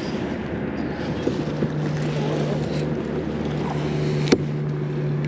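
Wind on the microphone and river water lapping at a kayak. A steady low hum joins about a second in, and there is a single sharp click just after four seconds.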